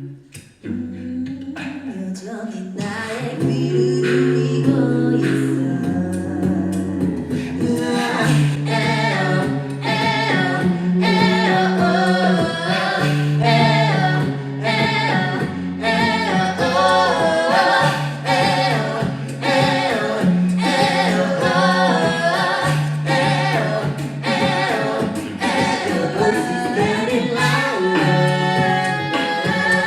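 A cappella vocal group singing in close harmony over a bass voice holding long low notes. The full group and lead melody swell in louder about eight seconds in.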